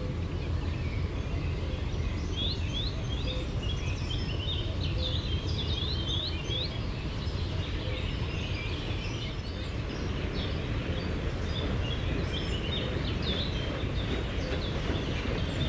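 Songbirds chirping in quick runs of short, high notes, over a steady low rumble.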